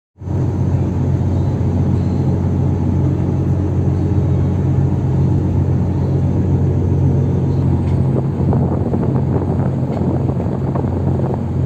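Diesel engines of a landing craft (LCT) cargo vessel running steadily under way, a loud, even low drone.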